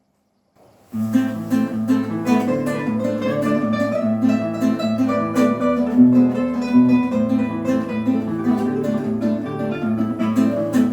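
Instrumental introduction to a folk-style song on plucked acoustic guitar: picked notes over a repeating bass line, starting about a second in.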